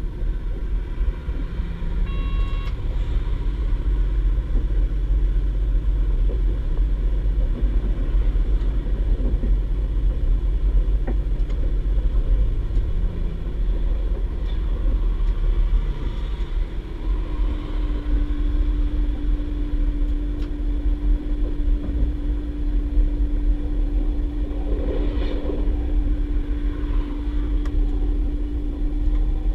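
A DB Class 612 diesel tilting multiple unit running, heard from inside the passenger compartment: a steady low rumble of its underfloor diesel engines and the wheels on the track. A short high tone sounds about two seconds in, and a steady hum joins about halfway through.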